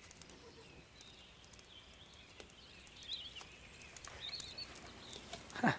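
Quiet outdoor field ambience with a few faint bird chirps, a couple about three and four seconds in. Shortly before the end comes one brief, loud breathy noise.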